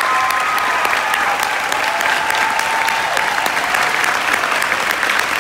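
Large audience applauding steadily, a dense, continuous clapping.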